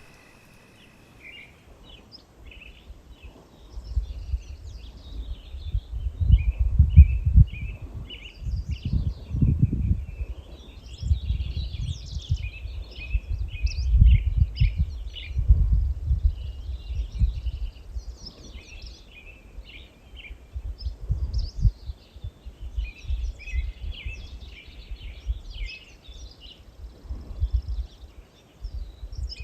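Songbirds chirping and singing throughout, with irregular low gusts of wind buffeting the microphone from about four seconds in.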